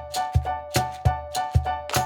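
Background music: an upbeat instrumental with a steady, quick percussion beat under held melodic notes.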